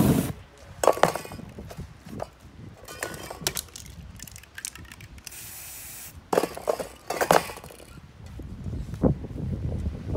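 Spray-painting handling sounds: a short burst of flame from an aerosol can at the start, then scattered clinks and knocks of spray cans and tools, with one steady spray-can hiss about a second long past the middle.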